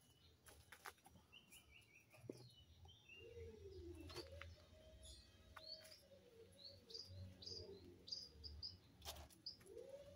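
Faint chirping of small birds: a quick run of short notes, then scattered high chirps.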